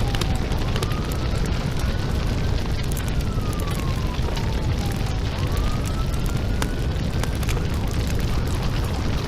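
House fire: a steady low rumble of burning with frequent crackles and pops, while a siren wails slowly up and down about twice.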